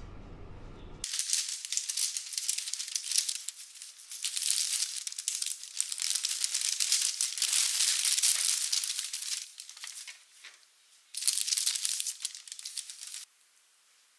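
Parchment baking paper rustling and crinkling as it is handled, in irregular bursts with short pauses. It stops suddenly about a second before the end.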